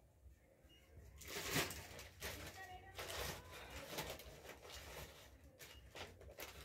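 Crinkling and rustling of a bread loaf's wrapper, handled in a run of bursts as a hand reaches into it, starting about a second in and loudest near the start.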